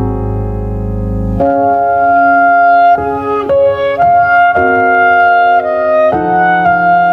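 Keyboard music. A held chord sits over a low drone, then about a second and a half in a slow line of sustained notes and chords begins, changing every half second or so.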